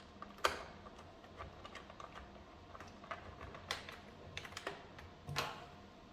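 Irregular clicks and light knocks of parts being handled, with three louder knocks: about half a second in, past the middle, and near the end.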